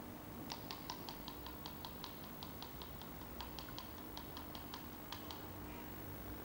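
A quick series of light, sharp clicking taps, about four or five a second, that stop about five seconds in, over a low steady hum.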